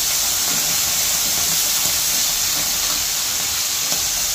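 Hot frying pan of diced vegetables hissing and sizzling steadily as a splash of water just poured in boils off into steam.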